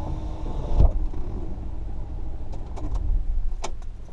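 Car engine running at idle, heard from inside the cabin as a steady low rumble. A thump comes about a second in, and a few sharp clicks follow near the end.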